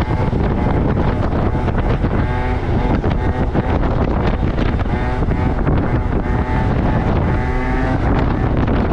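Small two-stroke moped engine revving hard, its pitch rising and falling several times as the throttle is worked, with heavy wind buffeting the microphone.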